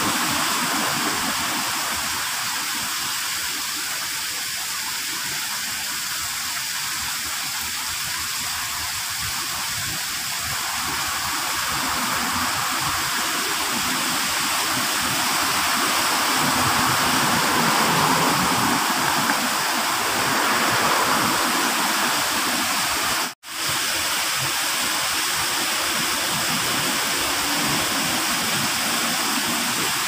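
Steady rush of water from an ornamental rock waterfall pouring into a shallow garden pond, with a momentary dropout about three-quarters of the way through.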